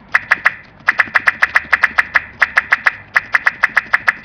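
A child making rapid sharp mouth clicks, like a string of mini firecrackers popping: three clicks, a short gap, then a steady run of about six or seven a second with one brief break.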